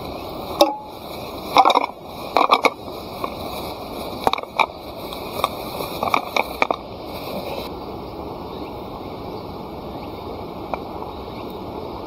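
Campfire wood crackling and popping in irregular sharp snaps, busiest in the first half and dying away after about seven seconds, over a steady background chorus of insects.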